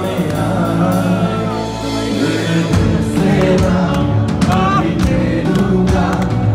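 A Hindi love song with singing plays loud over the party's sound. A deep bass beat comes in about three seconds in.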